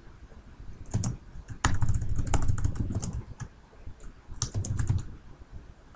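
Typing on a computer keyboard: quick keystroke clicks in short bursts, about a second in, again from roughly one and a half to three and a half seconds, and once more around four and a half seconds.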